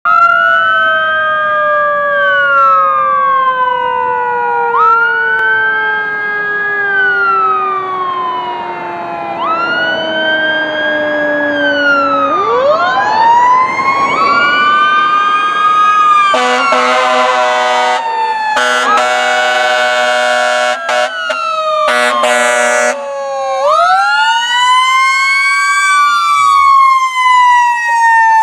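Fire engine responding with a Federal Q2B mechanical siren: it winds down slowly, then spins back up into a scream, and winds up again near the end as the truck passes. A second siren rises and falls in repeating cycles of about four to five seconds. Three air horn blasts sound in the middle.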